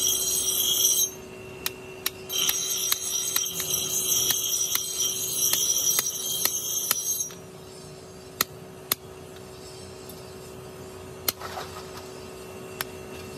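Red-hot steel tang of a billhook being pressed into a wooden handle, hissing and crackling as it burns its way in. The hiss stops about 7 s in, leaving a few sharp taps and clicks.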